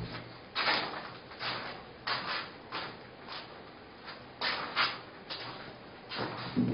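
A run of short, irregular rubbing strokes, about two a second.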